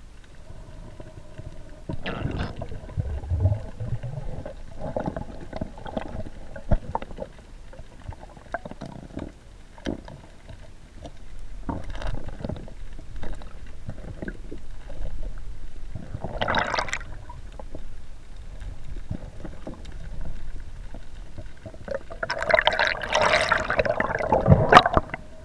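Muffled underwater sound of water moving around the camera, with many scattered clicks and knocks. A short rushing burst comes about two-thirds of the way through, and a longer, louder rushing burst near the end.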